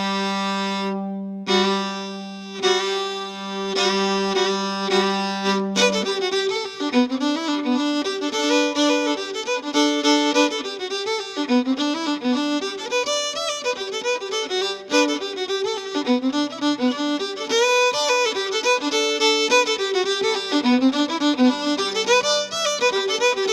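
Background instrumental music: a long held note for about the first six seconds, then a quick, busy melody of rapidly changing notes.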